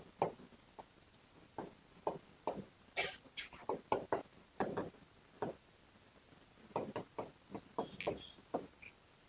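Writing on a classroom board: a string of irregular short taps and scrapes with brief pauses, and a short higher squeak about eight seconds in.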